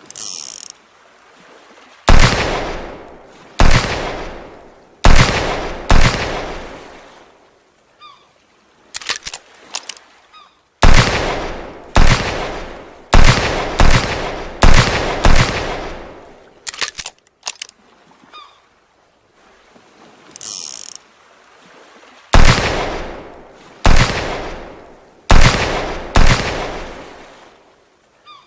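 Handmade revolver gunshot sound effect: sharp shots, each with a long echoing tail, fired in volleys of four, then six, then four, with short clicks in the pauses between volleys.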